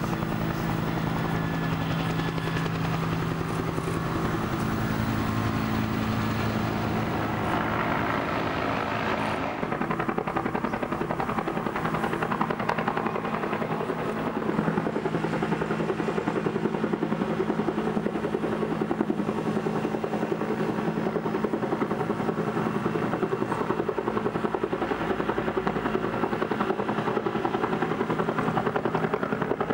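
Huey-type two-bladed helicopter hovering with a sling load on a long line: steady turbine and rotor sound, with a fast rotor beat. The sound dulls slightly about ten seconds in but keeps running.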